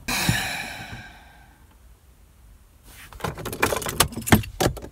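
Car keys jangling: a sudden jingle that fades over about a second and a half, then after a pause a quick run of clinks and clicks.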